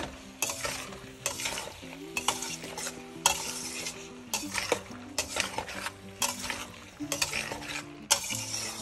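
A spatula stirring and scraping chili chicken with onions and capsicum around a stainless steel wok, in repeated strokes about one or two a second, over a low sizzle from the pan.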